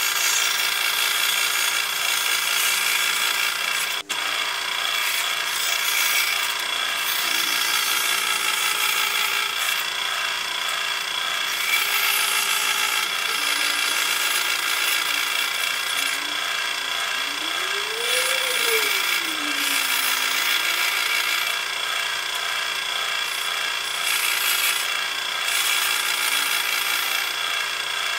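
Sabre bandsaw running steadily and cutting plywood, the motor and blade hum mixed with the sawing of the blade through the wood. The sound drops out briefly about four seconds in.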